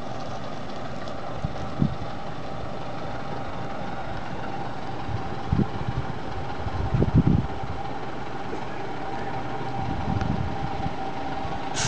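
Diesel engine of a BVG double-decker city bus running steadily near idle, a low hum with a constant whine over it. A few dull low thumps break in now and then.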